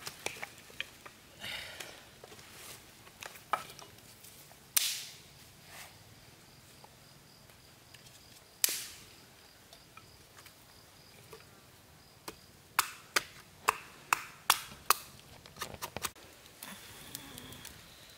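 Dry wooden sticks knocking and clattering as firewood is set down and laid out by hand, with a couple of sharp cracks and a quick run of knocks near the end.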